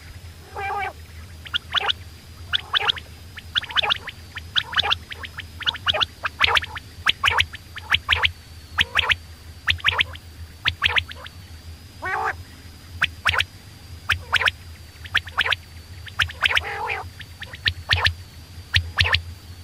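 Quail calling over and over: short, sharp notes in quick pairs and triplets about once a second, with now and then a longer, harsher call. A steady low hum runs underneath.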